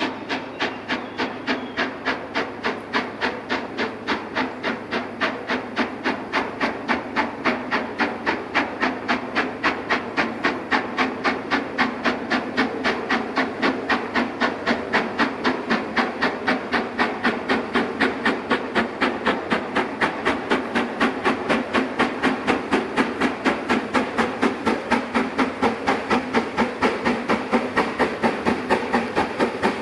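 Ex-LMS Princess Coronation class 4-6-2 steam locomotive 46233 Duchess of Sutherland working hard uphill under load, its exhaust beating sharply and evenly at about five beats a second. The beats grow louder as the engine comes nearer.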